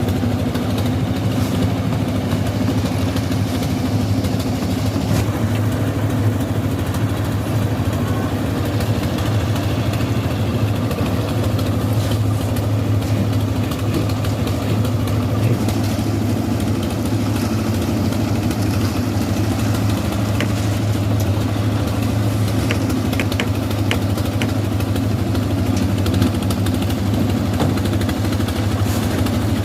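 Heavy machinery engine running steadily at a concrete pour, a constant low drone with a few faint clicks.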